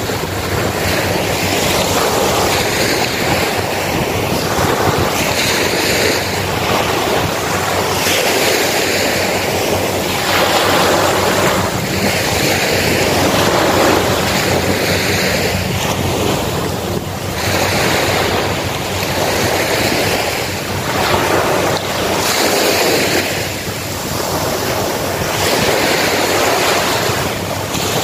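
Small waves breaking and washing up onto a sandy beach, the surf swelling each time a new wave comes in, every two to three seconds. Wind buffets the microphone underneath.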